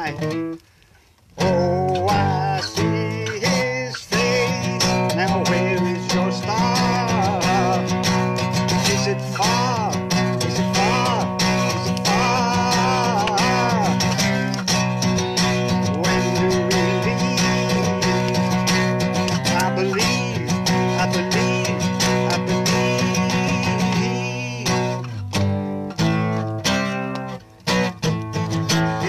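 A man strumming an acoustic guitar and singing along. There is a short break about a second in, then steady strummed chords.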